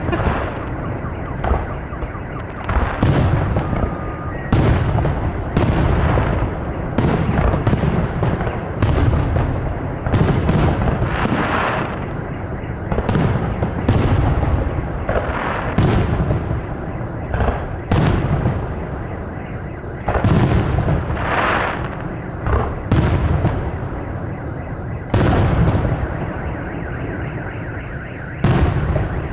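Aerial firework shells bursting one after another, about one boom a second, each trailing off in a rolling echo that fills the gaps between them.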